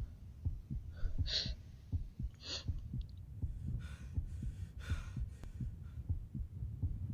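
Low, throbbing rumble with irregular pulses like a slow heartbeat, crossed by a few short hissing, rushing bursts of noise: two about a second apart early on and two broader ones around the middle.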